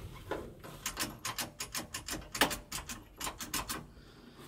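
Rapid, irregular series of small metallic clicks and rattles, about four or five a second at their busiest, as hands work the stripped steering column and ignition switch; the starter does not crank.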